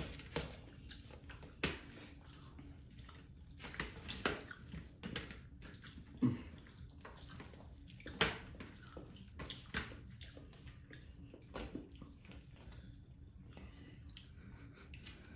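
Bare hands mixing rice and fish curry on steel platters and eating: wet squishing with irregular clicks and taps of fingers against the metal plates, a few of them louder.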